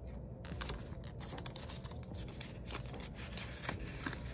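Paper banknotes and a paper envelope rustling and scraping as the cash is slid in, with scattered small ticks and crinkles.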